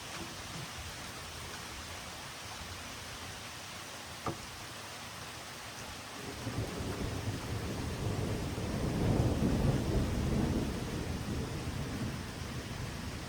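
Steady rain with one sharp tick a few seconds in, then a low rumble of thunder that builds about six seconds in, swells, and dies away near the end.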